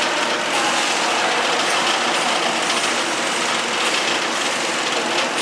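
Welding arc crackling steadily, an even frying hiss with no break.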